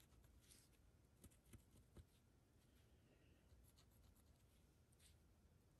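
Near silence, with a few faint taps and scratches of a heat-erase pen tip making short dash marks on quilted fabric.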